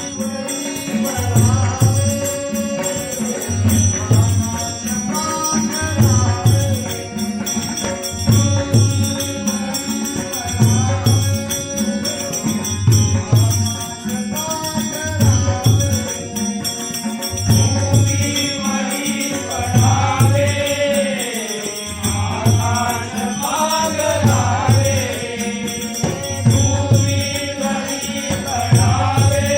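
Marathi abhang devotional song sung in bhajan style by a male voice, over a drum keeping a steady beat and small cymbals jingling continuously. The sung line is most prominent in the second half.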